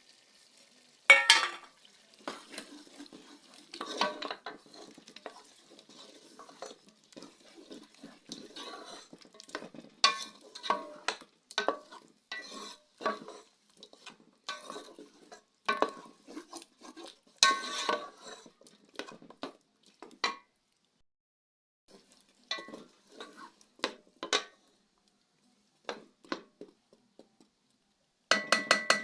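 A spoon stirring in a cooking pot, knocking and scraping against it in many short, irregular clinks, with a couple of brief pauses in the last third.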